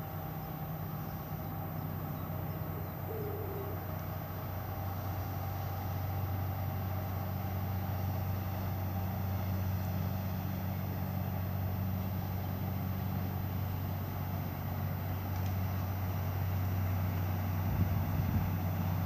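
Steady low drone of a large cruise ship's engines and machinery as she passes, growing slowly louder.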